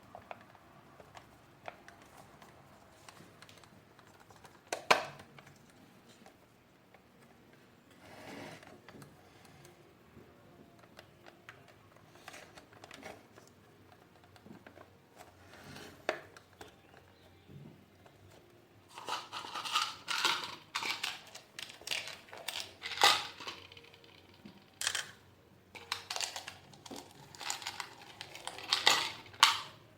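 Handling sounds from assembling a plastic vacuum cleaner: scattered clicks and knocks of plastic parts with some rustling, one sharp click about five seconds in, and a busy run of clatter in the last third.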